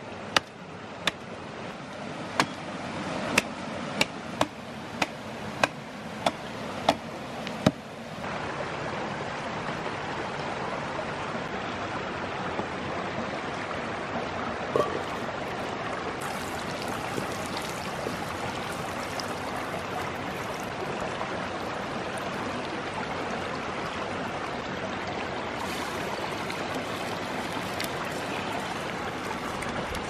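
Axe chopping into a dead tree trunk, about ten sharp strikes over the first eight seconds, over a rushing mountain stream. After that only the stream's steady rush of water over rocks is heard.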